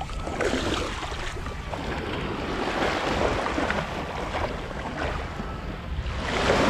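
Small waves washing up a sandy shore, with wind rumbling on the microphone; the wash swells louder near the end.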